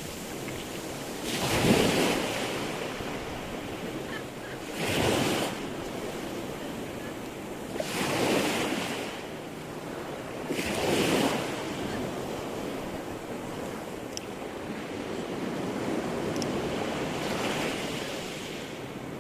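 Sea surf: waves breaking and washing in, one every three or four seconds, each swelling up and then falling back, over a steady rush of water and some wind.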